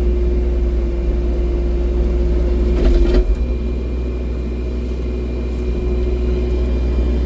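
Excavator's diesel engine running steadily, with a single knock about three seconds in.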